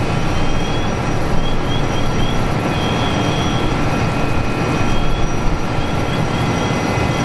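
Steady loud rumble of a fire truck's engine running at working speed to pump water up the aerial ladder to its nozzle, with thin steady high tones over it and a few short high chirps.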